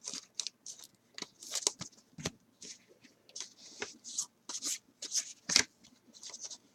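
Trading cards from a pack of Topps Chrome being slid and flipped apart by hand, a series of short, irregular swishes and clicks.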